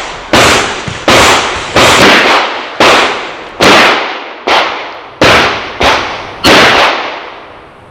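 A string of handgun shots: about a dozen sharp reports, roughly one every half to three-quarters of a second, each trailing off in echo.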